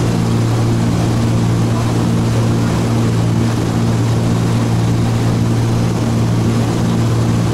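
Cessna T303 Crusader's twin turbocharged piston engines and propellers droning steadily in flight, heard inside the cockpit: a loud, even low hum with no change in pitch.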